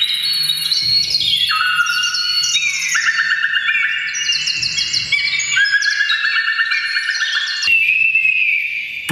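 Hearing-aid feedback whistles, amplified and computer-processed into overlapping high electronic tones with a fast, birdsong-like trill. Layers enter and drop out at shifting pitches, each held about a second, thinning to a single whistle near the end.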